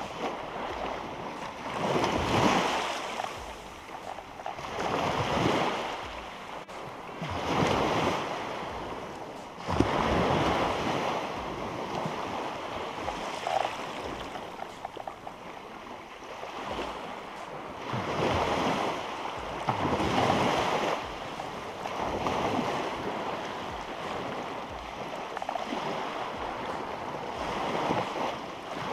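Small surf breaking and washing up the beach, swelling and fading every few seconds.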